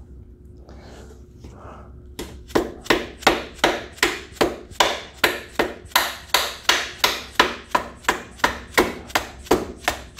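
Hammer blows at a steady pace of about three a second, starting about two seconds in, driving a new aftermarket ATV A-arm into place on its frame mounts. Before them, faint handling noise.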